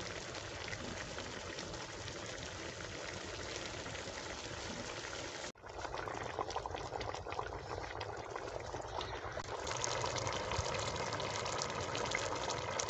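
Chicken karahi curry bubbling at a steady boil in an aluminium pot. It cuts out briefly about five and a half seconds in, then carries on a little louder with more small pops and crackles.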